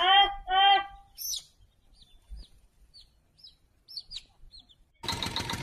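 Two short pitched calls, then a scattering of faint, high bird-like chirps. About five seconds in, a loud steady hiss-like noise begins.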